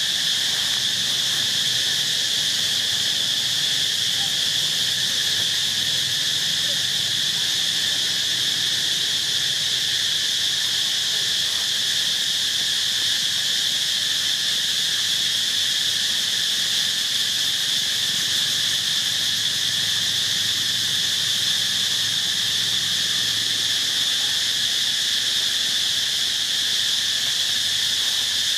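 Continuous insect chorus: a steady, high-pitched drone that holds without a break or change.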